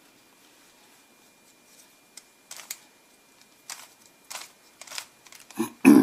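Rubik's cube layers being twisted by hand: a handful of short plastic clicks spaced about half a second to a second apart, with a louder knock near the end.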